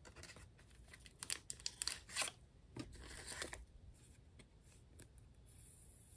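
Thin clear CPP plastic photocard sleeves crinkling and rustling in the hands as they are taken out of their small cardboard box and a photocard is slid into one. A cluster of sharp crinkles comes between about one and three and a half seconds in, then softer handling.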